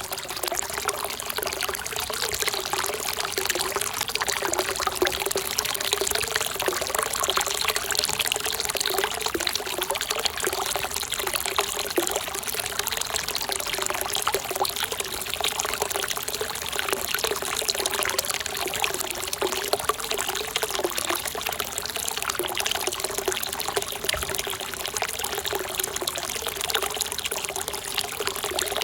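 Hot-spring water pouring steadily from a bath's spout into the pool, a continuous splashing trickle.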